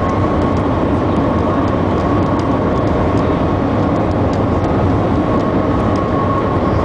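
Cabin noise of the Shanghai Transrapid maglev train accelerating at high speed, around 370–395 km/h: a loud, steady rush with a thin, steady whine running through it.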